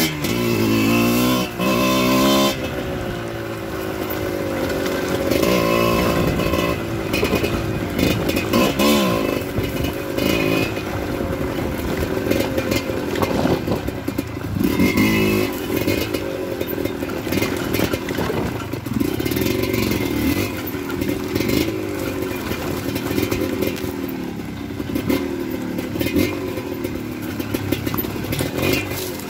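Dirt-bike engine running and being ridden, its pitch rising and falling as the throttle opens and closes, with frequent clattering knocks from the bike over rough ground.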